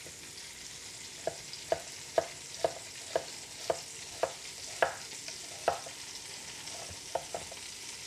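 Food sizzling steadily in a hot pan while a utensil knocks against the pan in a run of sharp taps, about two a second. The taps pause briefly, then two more come near the end.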